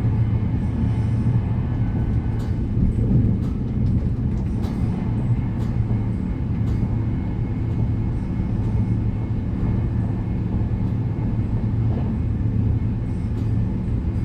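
Steady low rumble of a moving train heard from inside the passenger carriage, with scattered light clicks and rattles over it.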